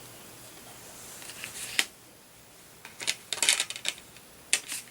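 Handling a Blu-ray steelbook case and its paper inserts: a sharp click a little under two seconds in, then a quick cluster of clicks and rustles, and two more clicks near the end.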